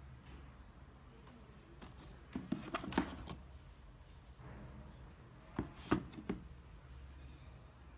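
Handling noise: two short clusters of light taps and knocks, about two and a half seconds in and again near six seconds, as the sneakers are picked up and moved.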